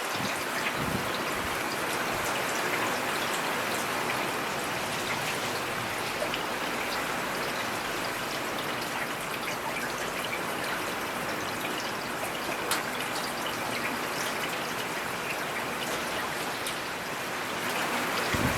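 Steady rain falling, an even hiss with the small ticks of single drops scattered through it.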